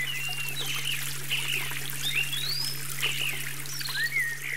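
Stream trickling with small birds chirping over the water, and a steady low hum underneath.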